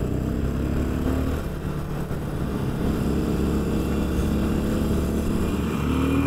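Cruiser motorcycle engine running steadily as the bike rides along the road, its note rising near the end as it accelerates.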